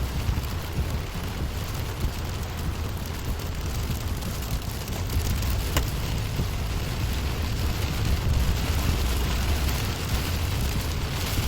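Rain on a moving car: a steady patter of drops over a continuous low rumble of tyres and engine.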